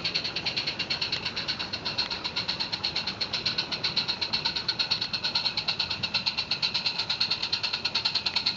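Roundhouse 'Jack' 0-4-0 live-steam garden-railway locomotive chuffing along at a steady pace, with a rapid, even run of exhaust beats. It grows a little louder as it approaches.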